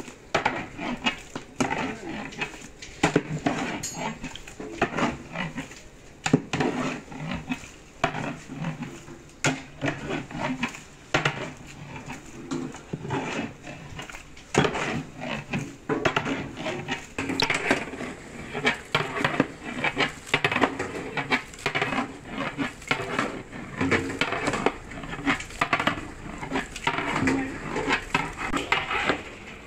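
Metal utensils clattering: ladles, spoons and steel plates knocking irregularly against large cooking vessels, many small clanks throughout.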